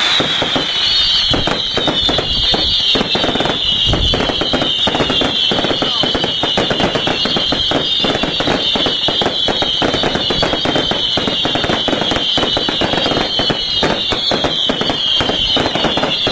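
Fireworks display going off in a rapid, continuous run of crackling bangs. Over it is a high whistling tone that falls in pitch again and again, about once every second and a half.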